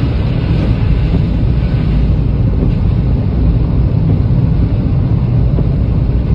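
Steady rumble of a car's engine and tyres on the road, heard from inside the cabin while driving.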